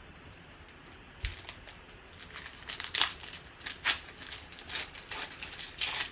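Trading cards being handled: a single light knock about a second in, then a run of irregular crinkling, sliding rustles of card stock and packaging.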